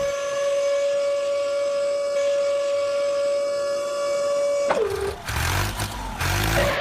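Small electric motor of a remote-control toy vehicle whining steadily at one pitch. Near the end the whine dips lower and breaks off into a short rough, scraping stretch, then picks up again.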